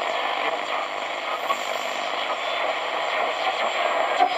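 Static hiss from a 2P3 superheterodyne medium-wave AM transistor radio playing through its small speaker.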